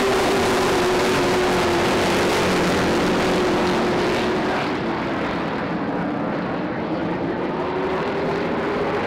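A pack of Super Stock race cars racing around an oval, their engines merging into one loud drone whose pitch dips slightly and rises again. The sound grows duller about halfway through.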